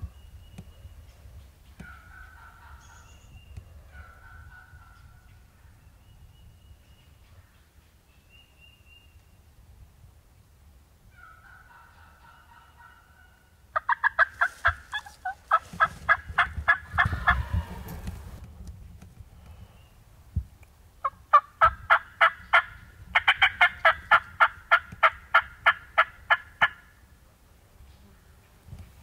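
Turkey calling: a few faint single calls early on, then two loud runs of fast, rattling notes, the first about halfway through and a second, longer run near the end.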